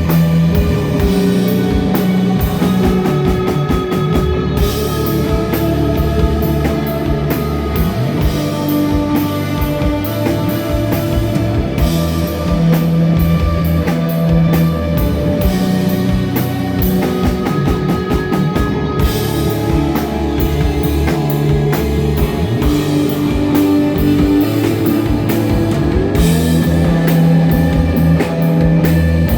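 Live instrumental desert rock: electric guitar and bass holding long notes over a steady drum kit with cymbals.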